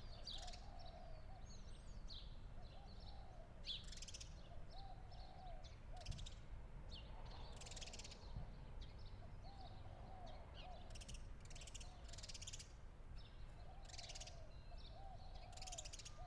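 Birds calling faintly: short runs of crow-like cawing calls repeat every few seconds, with scattered high chirps from smaller birds, over a faint low rumble.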